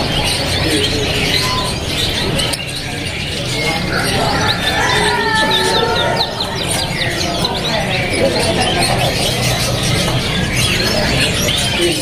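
Many caged canaries chirping and singing at once: a dense, continuous chatter of short chirps, with people's voices in the background.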